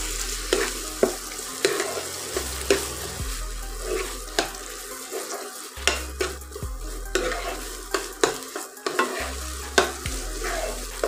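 Thick vegetable paste sizzling in hot oil in a non-stick frying pan while a metal spoon stirs and scrapes it, with frequent irregular clicks of the spoon against the pan.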